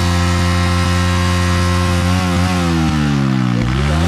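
Motorcycle engine running at a steady speed, then easing off with its note falling from about halfway through and revving back up near the end.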